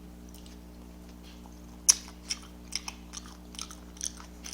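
Close-miked chewing: after a quiet start, a sharp crisp bite about two seconds in, then short wet mouth clicks and smacks, two or three a second.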